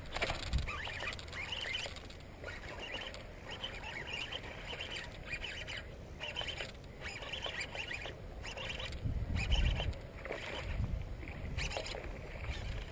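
Irregular rustling and clicking from a fishing rod and baitcasting reel being handled as a jig is worked through grass, with a stronger low rumble about nine seconds in.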